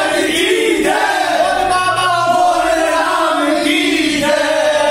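A group of men singing a Hindi bhajan together in chorus, holding long notes, with hand-clapping.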